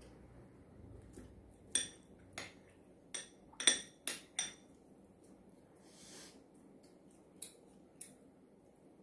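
Metal spoon clinking against ceramic bowls: a quick run of six sharp, ringing clinks in the middle, then two fainter ones near the end.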